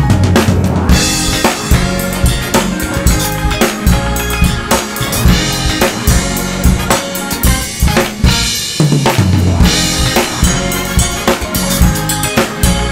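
Acoustic drum kit played in a steady groove: kick drum, snare and cymbals, over a backing music track with a pitched bass line.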